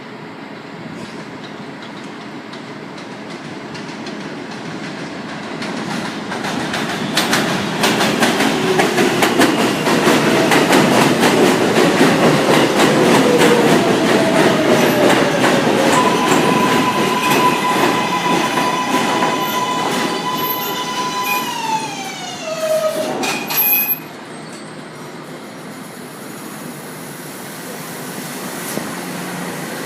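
A New York City subway train, an R143 L train, coming into the station and braking to a stop. The wheels clatter over the rail joints, and the electric propulsion whine glides down in pitch as the train slows. The noise cuts off sharply near the end, leaving a steady hum.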